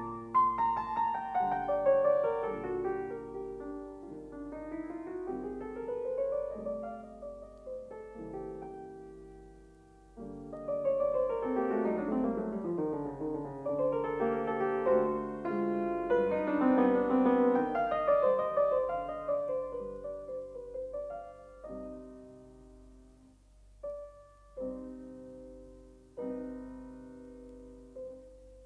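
Solo piano background music: flowing runs of notes rising and falling, thinning to sparse, quieter chords in the last third.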